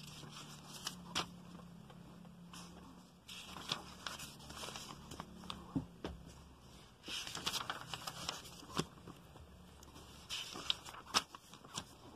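Pages of a paper catalog being turned by hand, rustling and crinkling in about three bursts with small sharp page clicks.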